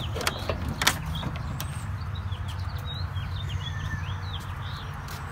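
A few sharp plastic clicks and knocks in the first second or so as the plastic cover above the grille is pulled free. Then birds chirp again and again over a steady low rumble.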